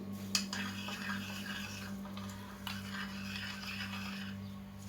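Water, olive oil and dried thyme being stirred together in a cooking pot: a steady scraping, swishing sound.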